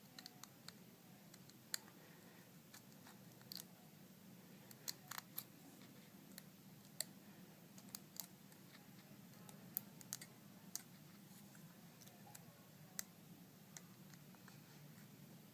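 Faint, irregular small clicks and taps of hands and a tool handling an iPhone's parts while its LCD and digitizer ribbon cables are worked into their sockets, over a low steady hum.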